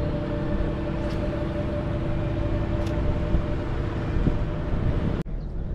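Bow-mounted electric trolling motor running with a thin steady whine over a steady low rumble, breaking off abruptly near the end.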